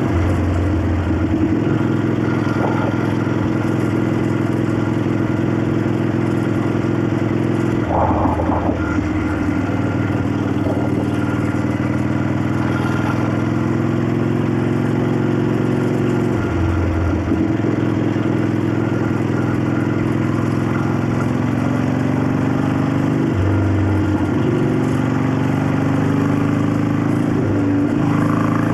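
1965 Harley-Davidson XLCH Sportster's Ironhead V-twin running under way, its note breaking off and settling at a new pitch several times as the rider shifts or rolls the throttle. This engine is known for a clacking valvetrain, a wheezing intake and an unidentified rattle.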